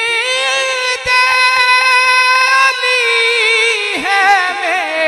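A solo voice singing long, wavering held notes without words between lines of a devotional Urdu song in praise of Ali. The note rises just before the start, holds, then dips and moves to a higher note about four seconds in.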